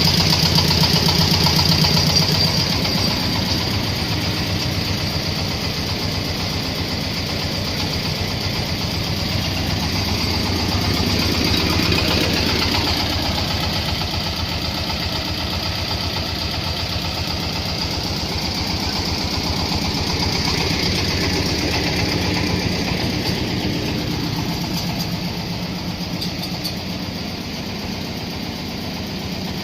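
Corn sheller running, driven by its 26 HP engine: a steady pulsing engine note with a high whine over it, easing slightly about two seconds in and swelling a little twice later.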